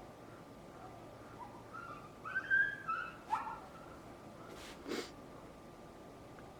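A dog whining in a run of short, high-pitched cries, followed a moment later by a single sharp click.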